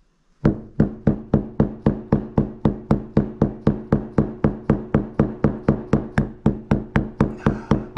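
Rapid, steady mallet blows on a metal driver piece, hammering a 6002RS bearing into the seat of an e-bike hub motor's rotor: about three or four strikes a second, starting about half a second in, with a ringing tone that carries between blows.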